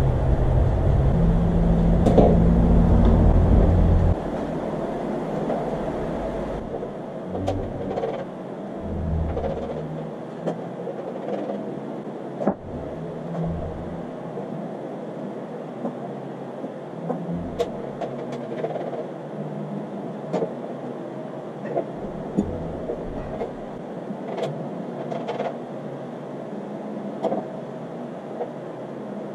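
Scattered clicks, light knocks and low thuds of motorcycle parts being handled and fitted back on, after a low rumble that stops about four seconds in.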